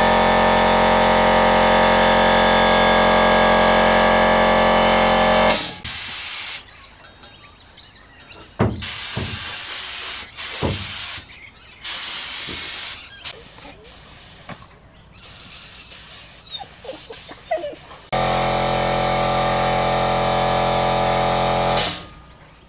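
Air compressor motor running steadily, then a series of hissing bursts from a paint spray gun, each about a second long with short gaps, as the boat hull is sprayed. The compressor is heard running again and cuts off abruptly near the end.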